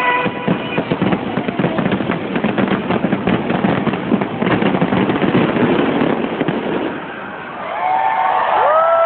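Fireworks finale: a dense, continuous barrage of bangs and crackling for about seven seconds that then eases off, with show music playing and long held notes coming in near the end.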